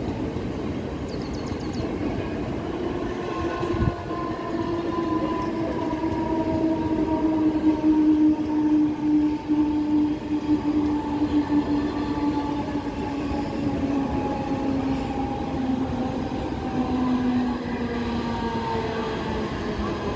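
Mumbai suburban EMU local train running past, with a motor whine of several tones that slowly falls in pitch and is loudest midway. A single sharp clank comes about four seconds in.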